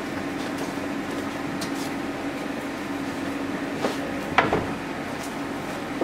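Steady low hum of room machinery over room noise, with two brief light knocks a little past halfway.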